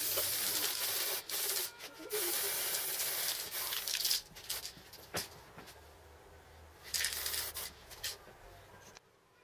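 Aerosol spray-paint can hissing as paint is sprayed onto metal parts: a long spray, then a series of shorter bursts with pauses between, growing shorter and fainter in the second half.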